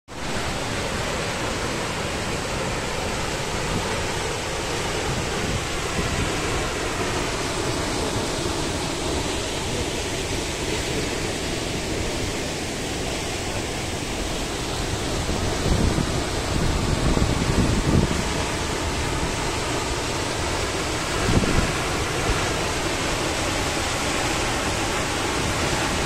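Steady, loud rushing of the Krimml Waterfalls, a large mountain waterfall crashing onto rock. A few low buffets of wind hit the microphone after the middle.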